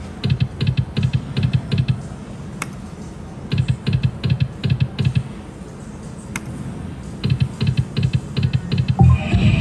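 Thunder Cash video slot machine spinning its reels three times, each spin a run of rapid, even clicks lasting about a second and a half, over a steady background hum. A louder burst with a held high tone comes near the end as another spin begins.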